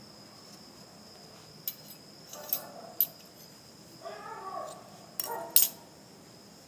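Several sharp little metallic clicks and taps, the loudest near the end, with two brief faint voice-like sounds, over a steady high-pitched cricket trill.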